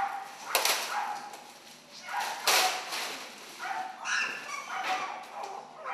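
Dogs barking and whining in short repeated calls, with loud rustling of a plastic sheet being handled about half a second in and again about two and a half seconds in.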